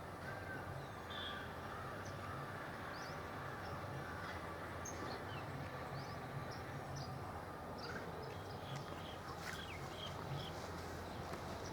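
Birds chirping in many short scattered calls over a steady outdoor background with a low hum.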